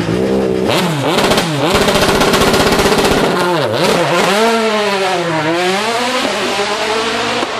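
Ex-works Opel Astra DTM race car's naturally aspirated V8, loud: revs blipped sharply twice, held high, then the car pulls away with the engine note dipping and climbing again through a long sweep.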